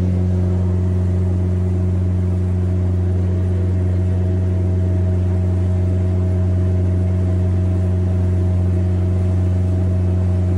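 Motorboat engine running steadily at speed, a deep, even drone over the rush of water along the hull.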